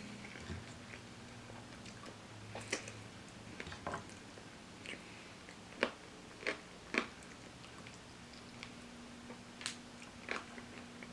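Chewing fried chicken close to the microphone: scattered crunches and wet mouth clicks, the sharpest three about six to seven seconds in.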